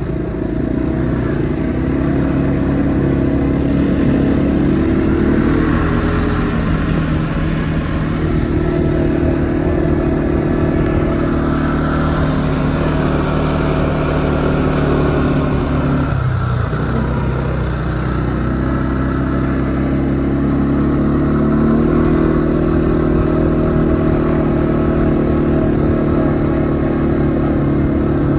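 A small vehicle's engine running steadily as it is driven, its pitch dipping and rising again twice along the way.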